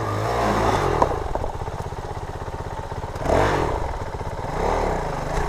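Dirt bike engines running, with one revving up and back down about three seconds in and again near the end.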